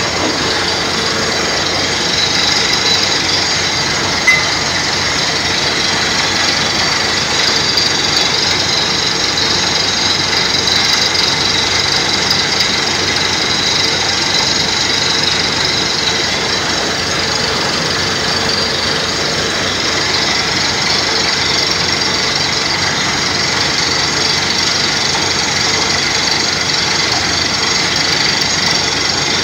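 Compressor-driven borehole drilling: a loud, steady rush of compressed air blasting rock dust out of the bore over the running machinery. A single short knock comes about four seconds in.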